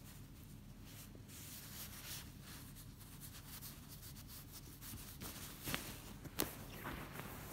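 Soft rubbing and rustling of a hand stroking a cat's fur and scratching under its chin on a nylon sleeping bag, with a few sharper rustles in the last two seconds.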